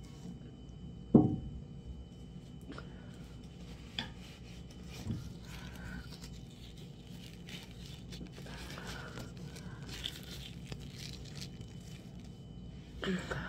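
Hands and dishes handled at a table: one sharp knock about a second in, a few lighter clicks and knocks after it, and soft handling noises between them.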